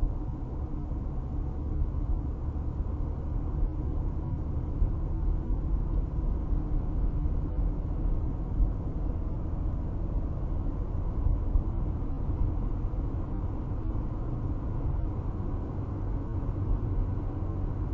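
Steady low rumble of tyre and engine noise heard inside a car cabin cruising at highway speed, about 60 mph.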